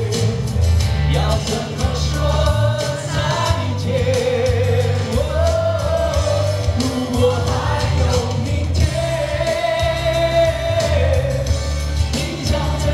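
Male singer performing a Mandarin pop ballad live through a microphone and PA, holding long notes over an instrumental backing with a strong bass.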